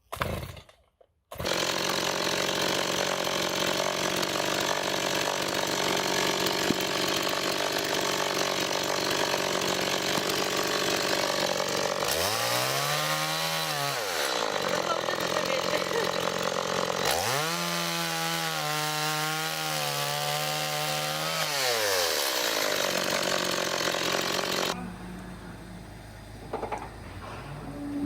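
Chainsaw running at high revs. Its pitch drops and recovers twice, the way a saw bogs under load while cutting wood. It cuts out a few seconds before the end.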